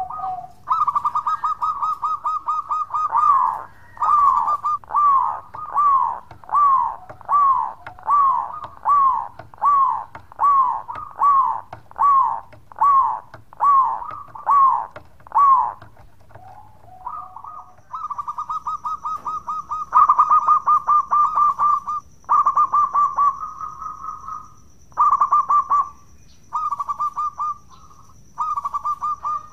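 Zebra dove (perkutut) singing. It starts with rapid rolling trills, then gives a long run of separate curving coos about one and a half a second. From around halfway it goes back to trills broken by short pauses.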